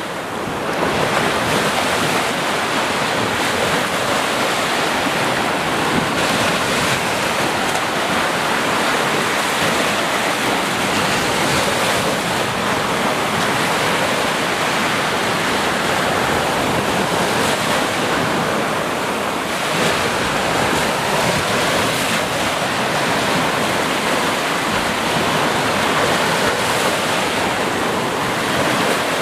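Ocean waves breaking and washing in continuously, a dense steady surf with slow swells in loudness.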